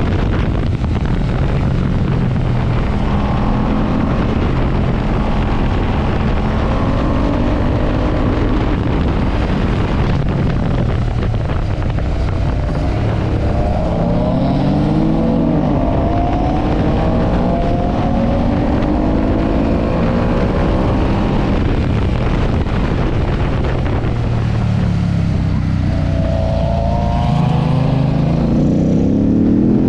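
Ducati S4RS motorcycle's L-twin engine running hard under way. The revs climb and drop several times as it accelerates through the gears and backs off, with a strong climb near the end.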